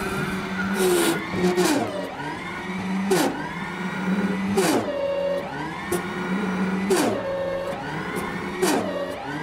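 Electric mini loader's drive motor whining under load, with a steady motor hum underneath. The whine falls sharply in pitch about six times as the motor bogs down pushing the bucket into a sand pile: the drive motor is stalling out under load.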